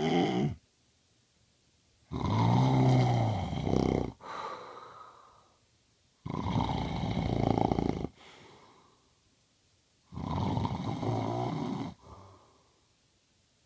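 A man snoring: three long snores about four seconds apart, each lasting about two seconds, with a low rattling buzz. Each snore is followed by a shorter, softer breath that fades out.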